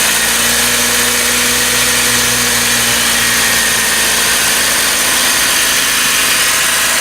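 1999 Honda Civic's four-cylinder engine idling steadily just after its first start with a newly fitted aftermarket header and no catalytic converter, a loud, even exhaust sound.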